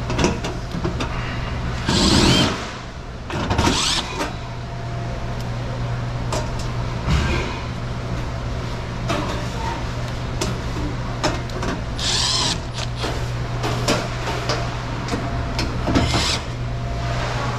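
Milwaukee cordless driver run in four short bursts of about half a second each, with clicks and rattles from tools being handled, over a steady low hum.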